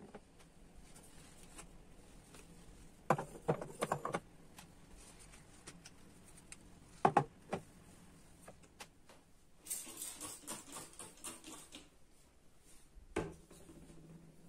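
Household handling sounds: clusters of small clicks and knocks a few times, and about ten seconds in a couple of seconds of hissy, rustling noise.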